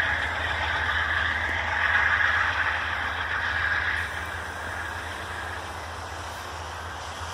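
Passenger train cars rolling past on the rails with a steady rushing noise. The noise fades about four seconds in as the last car moves away.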